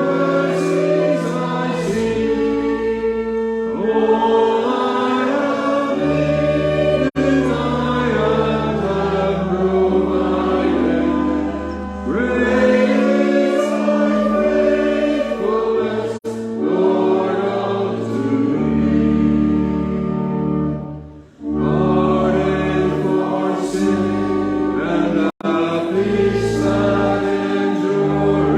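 Many voices singing a hymn together over long held low accompanying notes, with short breaks between lines.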